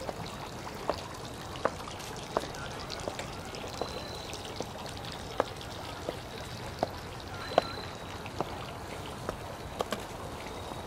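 High heels clicking on a brick-paved path, one sharp step about every three quarters of a second, over a steady outdoor hiss.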